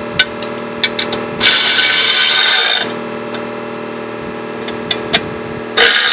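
A tool with a 10 mm socket tightening the bolts of a motorcycle skid plate, running in two short bursts of about a second each. A few light metal clicks come between the bursts, over a steady background hum.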